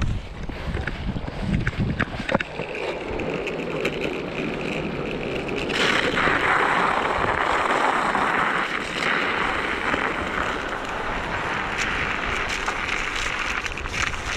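Large pneumatic mountainboard tyres rolling. First they run over gritty asphalt with a low rumble and a few clicks; from about two seconds in they run through packed snow as a steady hiss, which gets louder about six seconds in. Wind on the microphone underneath.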